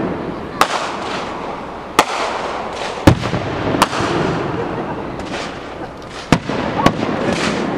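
Aerial fireworks shells bursting: six sharp bangs, irregularly spaced, the loudest about three seconds in, with crackling and hissing between them.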